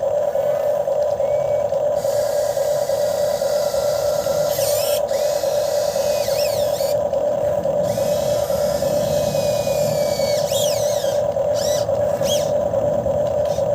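RC excavator running with a steady whining hum from its hydraulic pump motor, and brief higher whines gliding up and down now and then.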